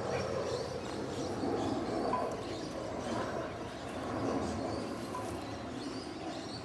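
Steady outdoor background noise with faint bird chirps, and a short electronic beep twice, about three seconds apart.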